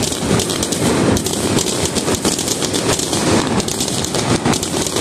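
Aerial fireworks shells bursting overhead: a loud, dense, continuous run of crackles and pops from several bursts going off together.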